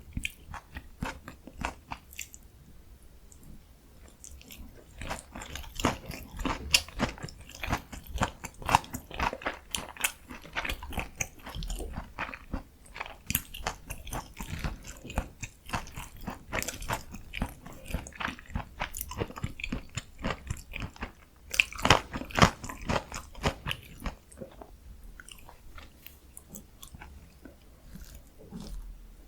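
Close-miked biting and chewing of a breaded, fried Korean pork cutlet topped with kimchi and cheese: crisp crunches of the coating amid steady chewing. The crunching comes in busier spells about six to eleven seconds in and again around twenty-two seconds, and thins out toward the end.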